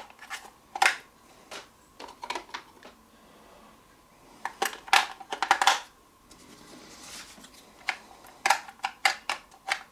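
Two AA batteries being fitted into the plastic battery compartment of a weather station's display unit: scattered clicks and knocks, with a loud cluster of clicks around the middle and more near the end as they are pressed home.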